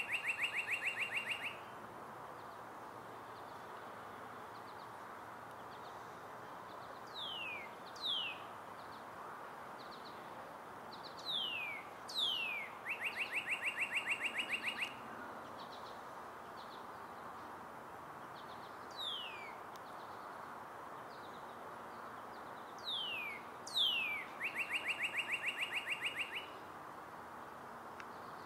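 Northern cardinal singing: loud down-slurred whistles, usually two at a time, several of them running into a fast, even trill of short repeated notes. The phrases come every few seconds over a steady background hiss.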